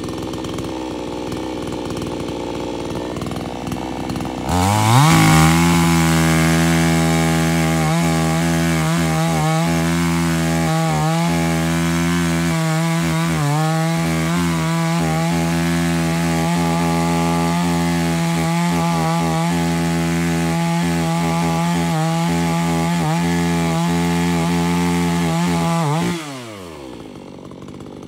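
Gas chainsaw idling, then throttled up about four seconds in and held at full revs for about twenty seconds while cutting into a tree trunk, its note wavering under load. It drops back to idle near the end.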